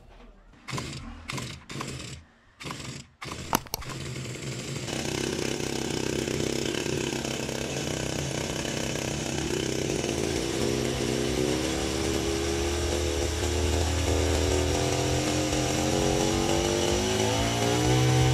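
Small two-stroke hedge trimmer engine being pull-started: about four short pulls on the recoil starter, then it catches about four seconds in and runs steadily. Near the end it revs up, rising in pitch.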